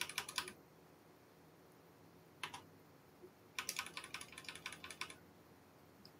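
Computer keyboard keystrokes: a quick flurry right at the start, a couple of taps about two and a half seconds in, then another fast run of keystrokes lasting about a second and a half near the middle.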